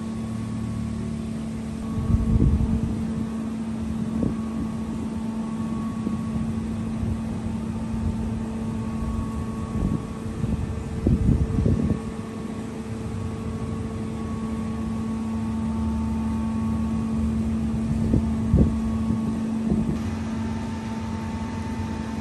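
A steady low mechanical hum, with wind gusting against the microphone a few times.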